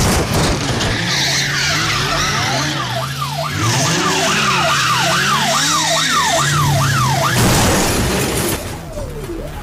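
Car drifting with its tyres squealing and engine running, joined midway by a police siren in rapid falling yelps, about three a second, for several seconds.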